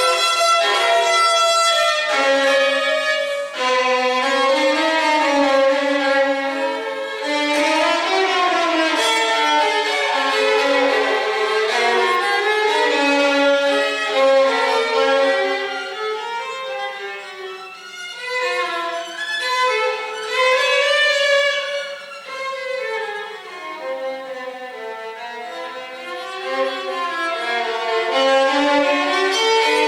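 Violin music: a bowed melody moving from note to note, a little quieter for a while past the middle.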